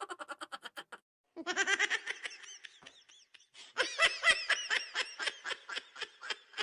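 Laughter sound effects: a short run of rapid giggling, a brief silent gap about a second in, then a longer run of quick, rapid laughing pulses.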